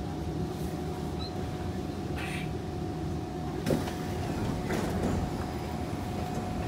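Interior of a Kawasaki C151 metro train coming to a stop at an underground station: a steady low rumble with a steady hum, a sharp click about three and a half seconds in, then the sliding passenger doors opening about a second later.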